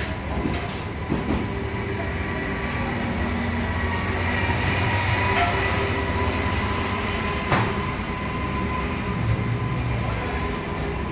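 Steady low mechanical hum and rumble with faint steady whining tones over it, and one sharp click about two-thirds of the way through.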